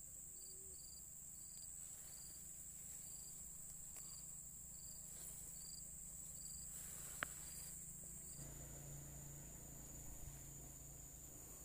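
Faint, steady high-pitched insect chorus, with a shorter chirp repeating about once or twice a second that stops about eight seconds in. A single sharp click sounds about seven seconds in.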